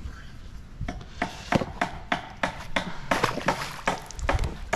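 Hollow plastic knocks and clatter of plastic duck decoys being handled against a plastic kayak and set out on the water: an irregular run of sharp knocks, several a second, starting about a second in.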